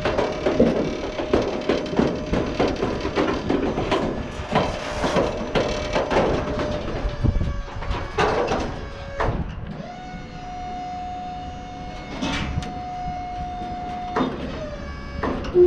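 Car-carrier trailer's hydraulic deck being worked by its hand control lever: metal clanks and rattles from the steel deck, then a steady even-pitched hydraulic whine for about four seconds, broken off by a knock and a loud click near the end.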